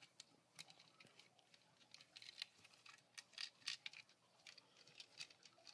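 Faint, irregular clicks and taps of small plastic toy parts as a hinged plastic playset and its figures are handled and fitted together.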